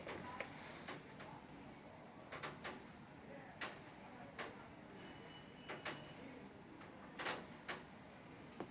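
Wireless intrusion alarm panel beeping: a short, high-pitched beep with a click, repeating evenly about once a second, with one longer, lower tone partway through.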